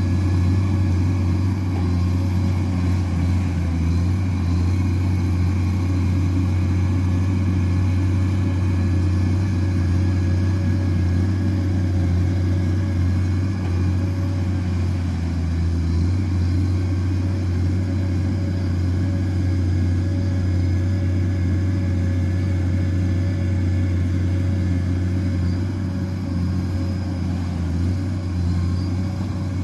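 Komatsu PC210 excavator's diesel engine running steadily as the machine tracks through deep muddy water: a constant low drone.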